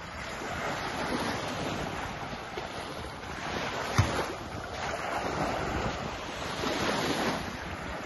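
Small waves washing up and receding on a sandy shore, swelling and ebbing a few times, with wind rumbling on the microphone. A single sharp click about halfway through.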